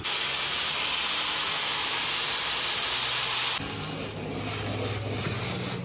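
A loud, even hiss cuts in suddenly and stops about three and a half seconds in. It gives way to a quieter sound with a low steady hum as a small 90-amp flux-core wire welder welds steel.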